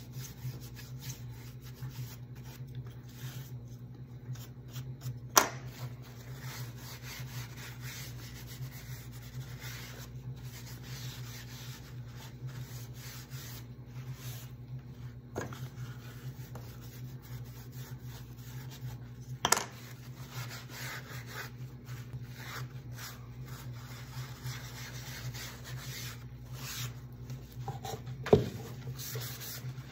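A rag rubbing black finishing wax into a painted wooden tray, a steady scrubbing sound over a low hum. Three sharp knocks stand out, about five, twenty and twenty-eight seconds in.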